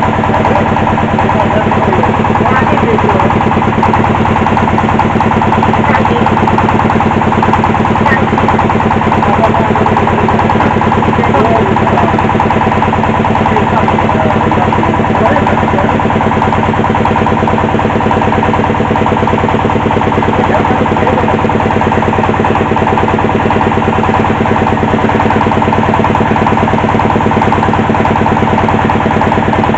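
Engine of a hydraulic well-drilling rig running steadily under load, a loud, even drone with a fast regular pulse.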